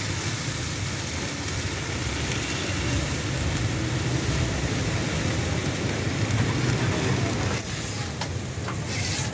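Steady background din of a roadside street-food stall: a low rumble with a hiss over it, and a few light clicks near the end.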